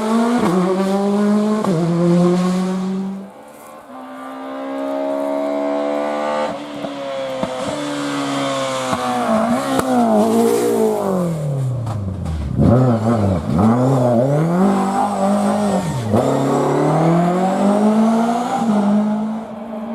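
Rally car engine driven hard on a closed stage: revs climbing, falling sharply on lift-off and a rapid series of downshifts into a corner, then climbing again through the gears.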